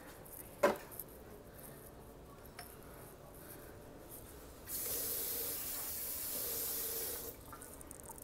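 Kitchen sink faucet running for about two and a half seconds, filling a plastic bottle with water. A single sharp knock comes less than a second in.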